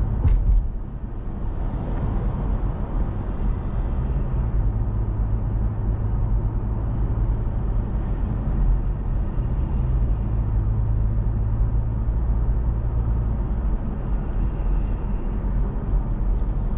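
A car driving: steady low engine and road rumble.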